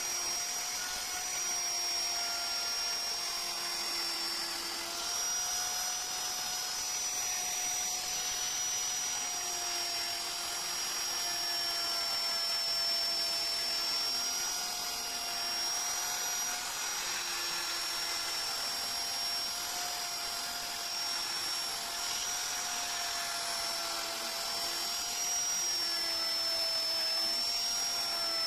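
High-speed electric rotary carving tool running continuously with a steady whine, its pitch dipping slightly now and then as it cuts into wood.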